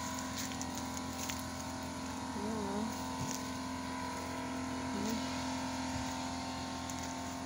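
A steady mechanical hum, several constant tones over a low, even noise, like a motor running without change.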